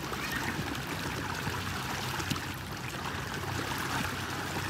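Steady rush of running water with a faint low hum underneath.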